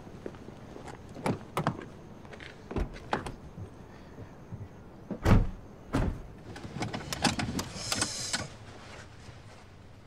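Handling sounds in a car: a string of clicks and knocks, with a car door shutting in a heavy thud about five seconds in, and a quick flurry of clicks and rustling near the end.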